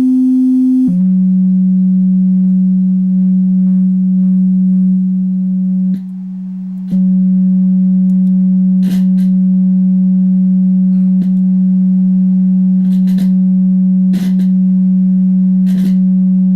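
Steady sine-wave test tone from a signal generator, played through the MTX Thunder X702 car amplifier and its speaker on the test bench. The pitch steps a little lower about a second in and then holds, with a brief drop in level around six seconds in and a few short clicks along the way.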